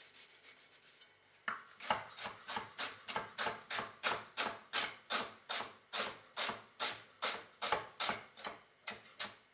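Chef's knife dicing an onion on a wooden cutting board: a steady run of crisp knife strokes, about four a second, each ending in a knock of the blade on the board. The chopping begins about a second and a half in and stops just before the end.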